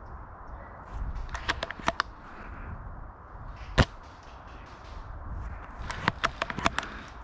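Airsoft gunfire in sharp single cracks: a few around a second and a half in, one loudest shot near the middle, and a quick cluster of cracks near the end.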